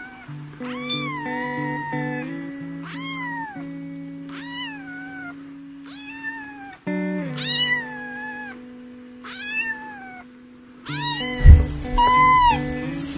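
Kitten meowing repeatedly: about ten high mews, each falling in pitch, over background music with held notes. A loud low thump comes near the end.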